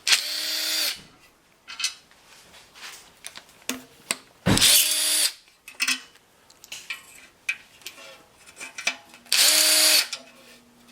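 Handheld power driver spinning out already-loosened 10 mm exhaust manifold bolts on an LS 6.0 V8, in three short runs of about a second each with a steady motor whine. Small metal clinks come between the runs.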